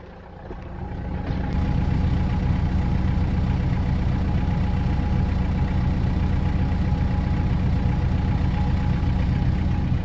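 Tractor engine running, growing louder over the first second or so, then holding steady.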